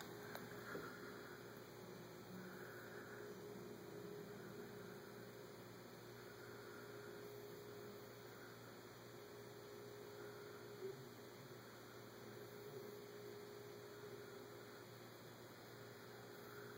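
Faint steady hum, with no other sound.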